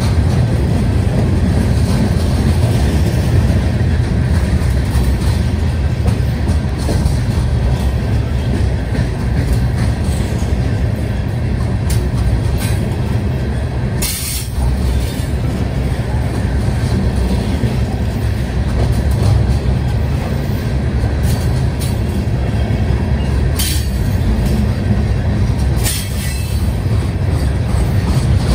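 Freight train's ballast hopper cars rolling past close by: a steady low rumble of steel wheels on rail, broken by a few sharp clacks.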